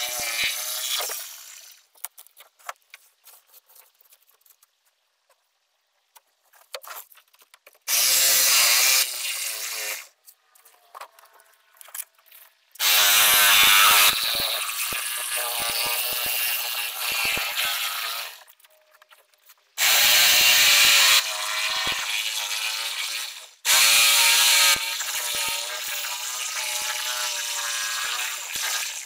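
A handheld power tool running in bursts of a few seconds, with a high steady whine. It stops and starts about five times, with small scrapes and clicks in the gaps.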